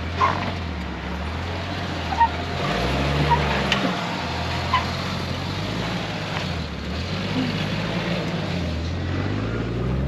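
Jeep Cherokee XJ engine running under load as it crawls over slickrock, its revs rising and falling several times, with a few sharp clicks over it.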